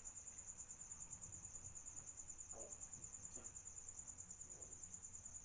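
Faint, steady, high-pitched trill of an insect, pulsing rapidly and evenly, over quiet room tone.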